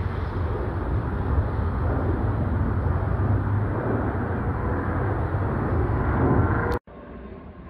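Steady low rumble of a twin-engine wide-body jet airliner's engines as it flies away low overhead. About seven seconds in, the sound cuts off abruptly with a click and drops to a much quieter hush.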